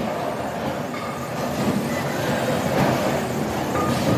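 Bowling ball rolling down the lane, a steady low rumble.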